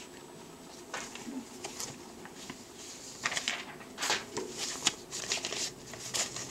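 Sheets of notebook paper rustling and crinkling in short, irregular bursts as they are handled, busiest in the second half.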